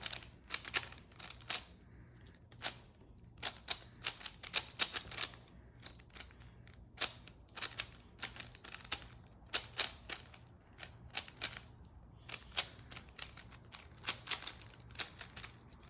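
A 3x3 Rubik's cube being turned fast in a speedsolve: its layers click and clack in quick bursts, broken by short pauses.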